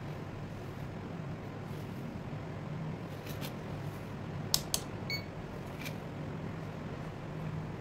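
Faint clicks of a charger circuit board and small fan being handled on a workbench, and a short electronic beep about five seconds in as a digital multimeter is switched on, over a steady low hum.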